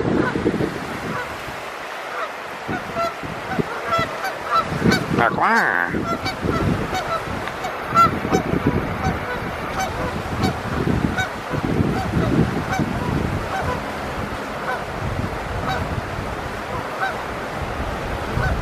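Birds calling: many short, repeated calls scattered throughout, over a low, uneven rumble.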